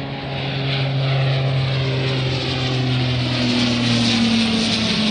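Saab 2000 turboprop on takeoff, the steady drone of its two Rolls-Royce AE 2100 turboprops and propellers getting louder and slowly dropping in pitch as it passes.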